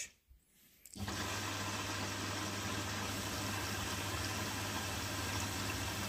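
Bosch Serie 6 front-loading washing machine beginning its water fill: about a second in, the inlet valve opens and water runs in steadily with a low hum. This is the start of the wash cycle.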